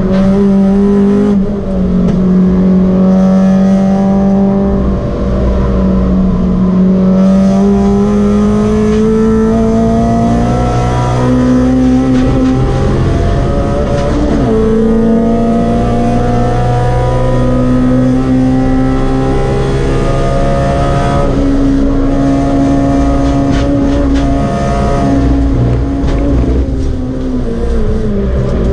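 Honda Civic EG's B18C 1.8-litre four-cylinder VTEC engine heard from inside the cabin under hard track driving. The engine note climbs and drops again and again with throttle and gear changes, then falls away near the end.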